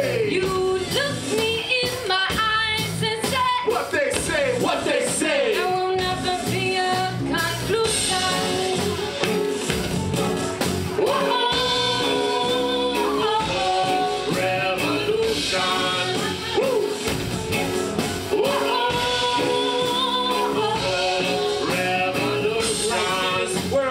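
Live band playing a song: drums, guitar and bass under a sung melody with long held notes.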